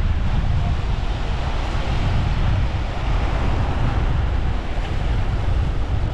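Surf breaking and washing up the beach as a steady rush, with heavy wind rumbling on the microphone.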